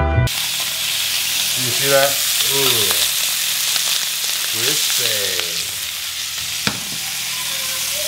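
Slabs of beef searing in a hot frying pan: a steady sizzle, with a few short squeaky scrapes as a metal spatula turns the pieces, and a sharp tap about seven seconds in.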